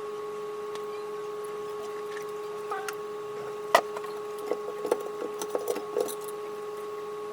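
A sharp knock about halfway through, followed by a scatter of lighter taps and clicks, over a steady hum.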